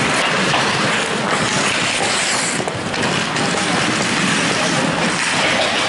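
Steady wash of ice hockey game noise in a rink: skates scraping on the ice and spectators in the stands, with no single event standing out.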